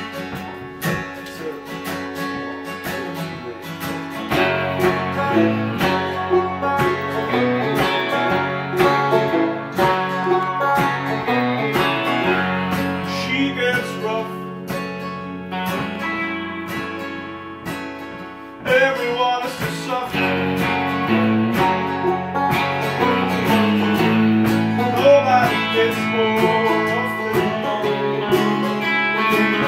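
Two acoustic guitars and a banjo playing a country-folk tune together, strummed and picked. The playing is sparser for the first few seconds and fills out from about four seconds in.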